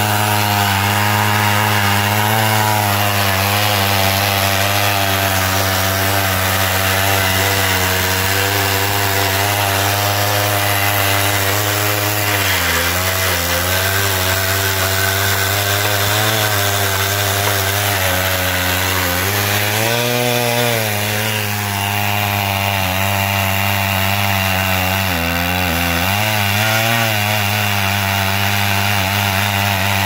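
Chainsaw in an Alaskan chainsaw mill running at full throttle, ripping lengthwise through a black cherry log to cut a slab. The engine note holds steady, dipping briefly three or four times.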